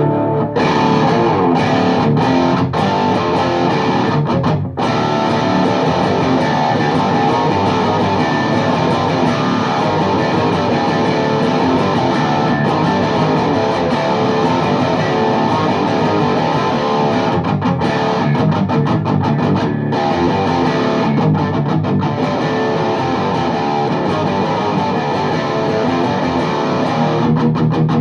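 Electric guitar riffing through a VHT Deliverance D60 valve amp head with KT88 power valves, played into a 4x12 cabinet loaded with Celestion Vintage 30 speakers. The playing runs on continuously, with a brief stop about five seconds in and some choppy, stop-start stretches later on.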